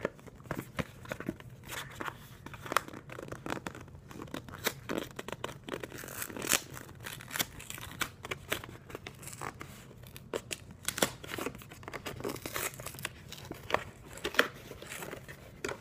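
Cardboard box of sanitary pads being torn open by hand: irregular tearing and crinkling with many sharp clicks.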